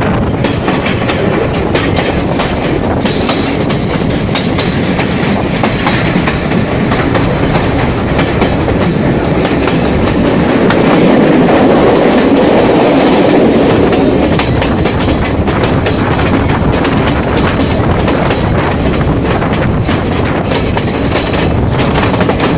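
Passenger train running along the track, heard from an open carriage window: a steady clatter of the wheels with fine rapid clicks. It swells louder for a few seconds near the middle.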